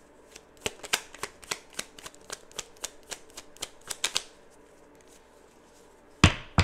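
A deck of oracle cards shuffled by hand: a quick run of crisp card clicks, about four a second, then a pause and a louder thump near the end.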